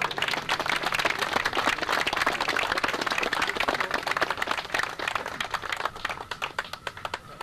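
A crowd applauding, many hands clapping at once; it thins out to scattered single claps near the end.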